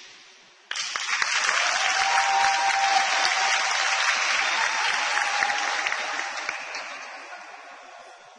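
A crowd applauding, starting abruptly about a second in, holding strong for several seconds and then dying away toward the end.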